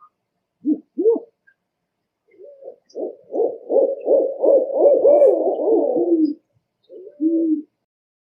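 Owl hooting: two short hoots, then a long run of quick wavering hoots, about three a second, ending on a drawn-out falling note, and a last two-note hoot near the end.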